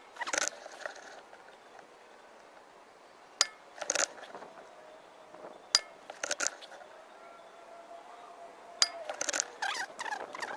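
Air rifle firing three times, two to three seconds apart. Each short, sharp shot is followed within a second by a quick run of metallic clicks as the action is worked for the next pellet.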